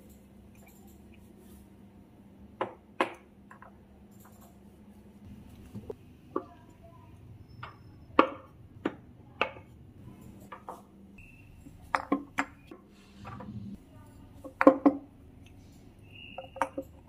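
Ceramic and glass storage jars being handled and set down on a wooden shelf: a scattered series of sharp knocks and clinks, two of them ringing briefly.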